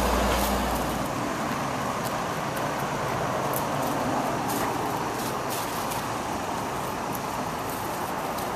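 Steady outdoor background noise, a constant hiss like distant road traffic, with faint light ticks here and there. A low rumble drops away about a second in.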